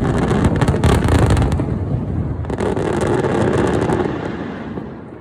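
Star mine fireworks barrage: dense rapid bangs and crackling in two bursts, the second starting about halfway in, dying away near the end.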